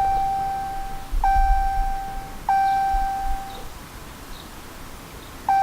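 Ram 1500 instrument-cluster warning chime sounding after the key is turned to run: a clear single-pitched ding repeating about every 1.25 s, each fading over about a second, then a pause of nearly two seconds before one more ding near the end.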